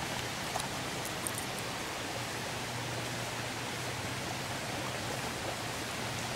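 Steady, even hiss with a faint low hum of the slow-crawling 4x4's engine underneath, and a few light ticks in the first second or two.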